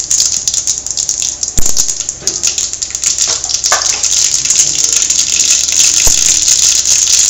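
Mustard seeds, cumin and fenugreek sizzling in hot oil in a kadai, a steady hiss with occasional pops from the seeds as the tempering splutters. A sharp knock about one and a half seconds in.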